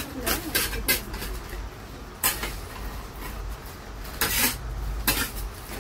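Flat metal scraper scraping and knocking on a metal slab as it works a spread of coloured candy syrup: a series of sharp scrapes at uneven intervals, the longest about four seconds in.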